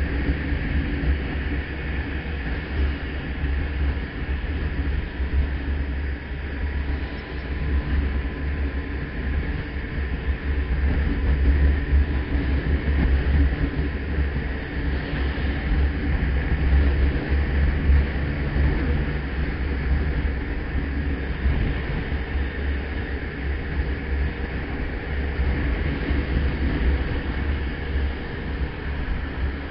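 Motorcycle riding at speed in traffic: a steady wind noise on the microphone over the engine running evenly.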